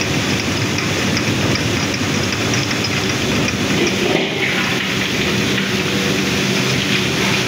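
Electric-driven mustard oil expeller running steadily: a continuous loud mechanical din with a low hum.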